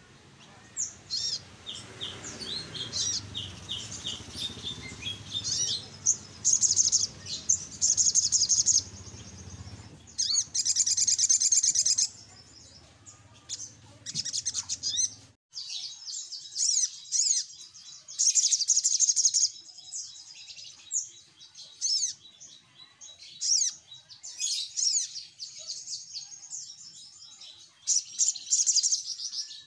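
Sogok ontong sunbirds singing, with rapid, high-pitched chirps and twittering trills in repeated bursts. A low background rumble runs underneath and stops abruptly about halfway through.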